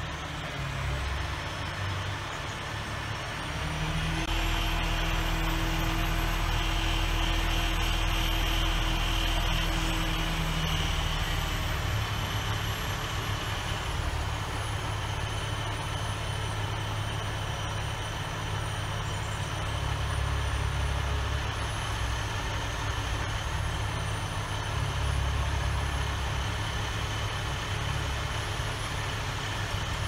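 Crane engine running steadily under load while a log is lowered on its line, picking up and growing louder about four seconds in, with a thin steady high whine over it.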